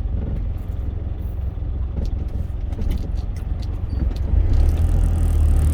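Steady low engine and road rumble heard inside the cab of a moving cargo truck, growing louder about four and a half seconds in.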